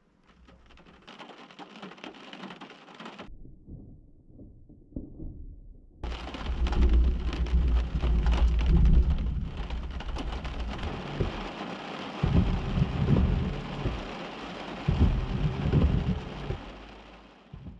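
Thunder from a close lightning strike, with rain: a faint rumble that turns loud about six seconds in, then swells in several low waves and fades out near the end.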